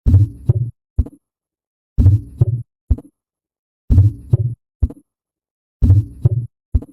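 Heart sounds, as heard through a stethoscope, repeating about every two seconds. Each cycle is two loud low beats close together with sound filling the gap between them, then a short, fainter beat about half a second later. Four cycles are heard.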